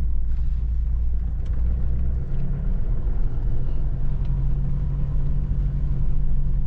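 Car engine and road noise heard from inside the moving vehicle: a steady low rumble whose engine note shifts about two seconds in.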